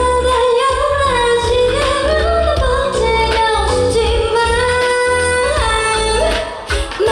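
Live Korean pop song: a woman singing a wavering melody over accompaniment with a steady bass beat.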